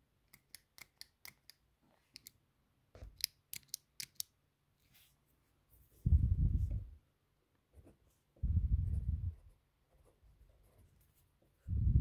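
Rotring 800 mechanical pencil: its metal mechanism gives a quick run of sharp clicks in the first second or so, a couple more around two seconds in and another run around three to four seconds in. Then lead writing on paper, heard as three low rubbing strokes of about a second each, the last near the end.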